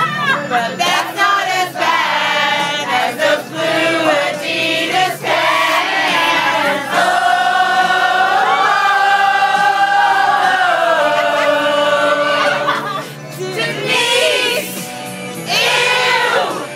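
A group of people singing a song together, holding one long note for a few seconds in the middle.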